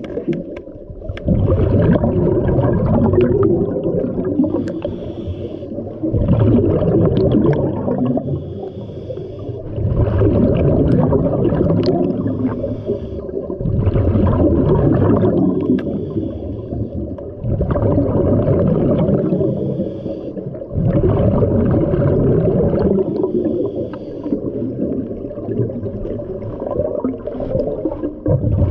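Scuba diver breathing through a regulator underwater: a rush of exhaust bubbles about every four seconds, six times, with quieter inhalations between.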